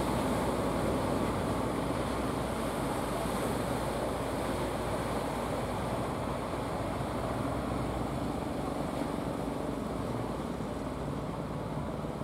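Engines of several wooden fishing boats running steadily as they come in through the surf, over a continuous wash of breaking waves and wind.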